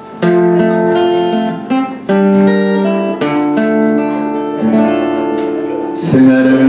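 Acoustic guitar playing a slow, melodic song introduction, with plucked and strummed notes left to ring.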